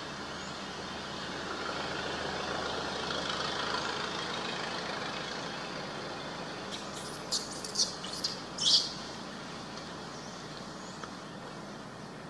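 Steady outdoor forest ambience with a soft, even hiss. About seven seconds in comes a quick run of four or five short, high-pitched chirps, the last the loudest.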